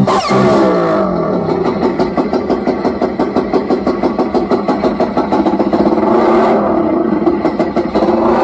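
Electronic dance music played loud through a car-mounted PA sound system during a sound test, here a fast, buzzing, pulsing passage that sounds engine-like.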